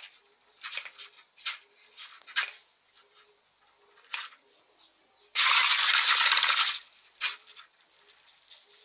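A cat hissing: several short sharp hisses, then one loud hiss lasting about a second and a half past the middle, and one more short hiss after it.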